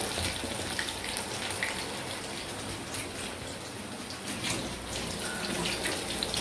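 Soya chunks (meal maker) deep-frying in hot oil in a kadai: a steady sizzling hiss with scattered small pops and crackles.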